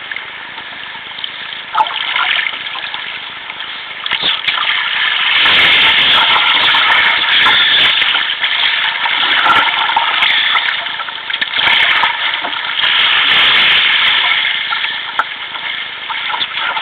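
Sea water rushing and splashing along a sea kayak's hull in a choppy sea. It grows much louder about five seconds in and stays loud, easing briefly around twelve seconds before swelling again, then falls back near the end.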